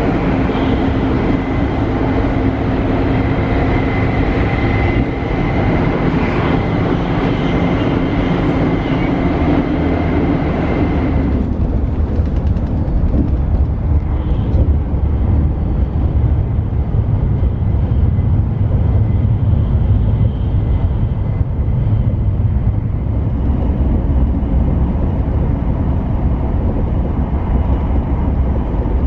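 Shinkansen bullet train running, heard from inside: a steady rumble of running noise. For the first eleven seconds or so it is brighter, with a thin steady hum, as in the vestibule between cars. Then it drops to a muffled low rumble inside the Gran Class cabin.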